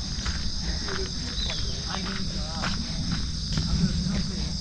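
A steady, high chorus of insects shrilling in the woods, with footsteps on the trail underneath.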